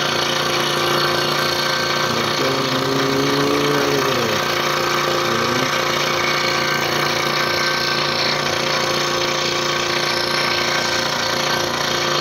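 Scroll saw running steadily, its blade stroking rapidly up and down as it cuts a thin wooden jigsaw-puzzle board.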